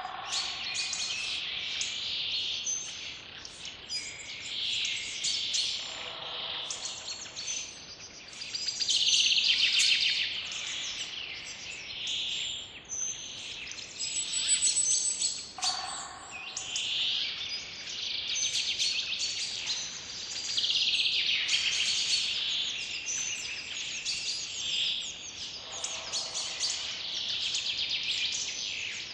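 Several songbirds singing and chirping together in a dense, continuous chorus of short high trills and tweets. A lower call recurs about every ten seconds.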